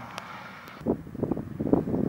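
Wind buffeting the camera microphone in irregular low rumbles from about a second in, after the faint tail of a passing car's engine noise dies away.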